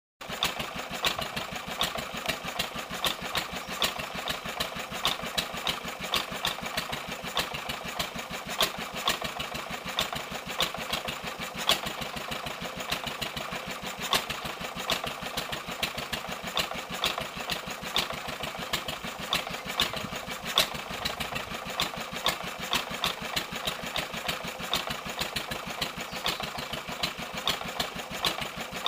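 Wolseley WD8 stationary engine running steadily with a quick, even firing beat.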